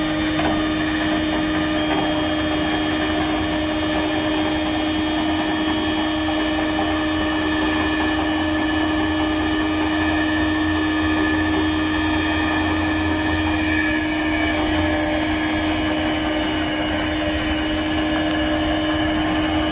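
Tow truck machinery running at a constant speed: a steady hum with one strong, unchanging tone over a mechanical whir, cutting off abruptly.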